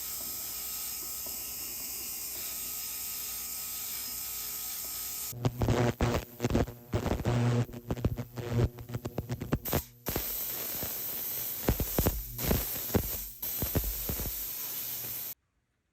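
Jewellery polishing and cleaning equipment running with a steady hiss and faint hum. About five seconds in it turns to irregular loud bursts and knocks as the piece is worked, then stops abruptly near the end.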